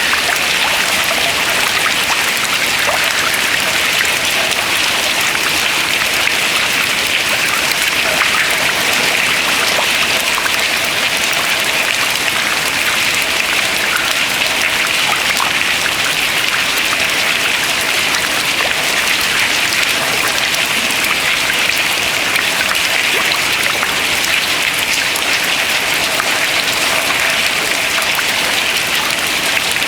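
Water dripping from ice into open water: many drips patter steadily, dense like rain, with no larger crash.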